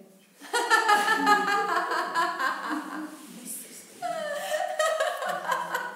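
A woman laughing, in two stretches with a short lull in the middle.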